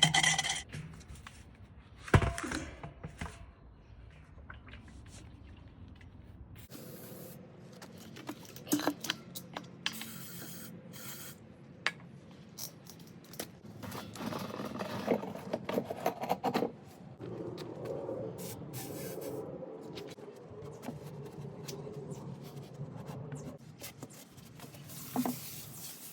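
Intermittent scraping, rubbing and clicking of metal washing machine parts being handled during repair, with one sharp knock about two seconds in.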